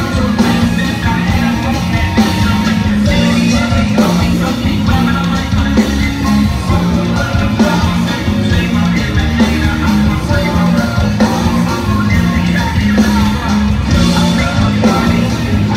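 Rock band playing a song with a singer, loud and continuous, over a repeating bass line.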